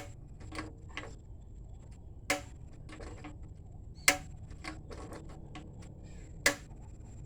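Pot of water being reheated toward the boil, giving irregular sharp ticks and clicks with a louder one about every two seconds, over a low steady hum.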